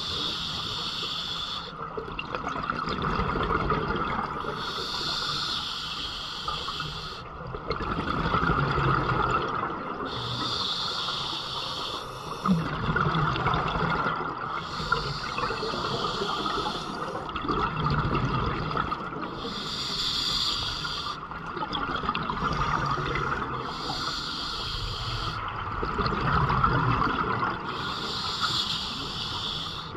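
Scuba diver breathing underwater through a demand regulator: a hissing inhale lasting about two seconds, repeated every four to five seconds, with the bubbling rush of the exhaled air in between.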